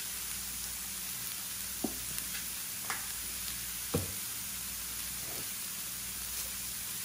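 Tofu cubes, broccoli and mushrooms sizzling steadily in oil on a hot electric griddle, with a few light knocks, the loudest about four seconds in.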